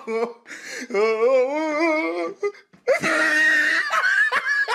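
A young woman laughing helplessly in wavering, whimpering bursts, breaking into a high-pitched squeal about three seconds in.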